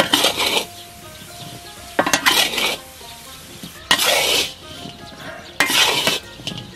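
A metal spatula scrapes and stirs straw-ash-coated beef liver pieces around a large wok, in four scraping strokes about two seconds apart. The liver is being dry-fried to drive off its moisture.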